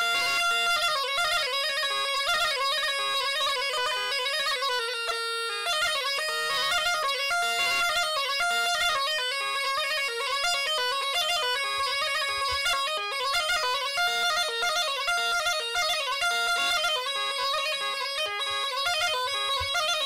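Pontic bagpipe (angion, a goatskin bag with a double chanter) playing a melody of quick note changes without a drone. A low note is held just before a brief break about five and a half seconds in.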